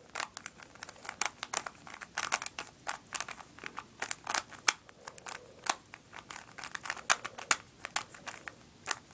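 Plastic Rubik's Cube layers being turned quickly by hand: a rapid, irregular run of clicks and rattles as the last corners are solved.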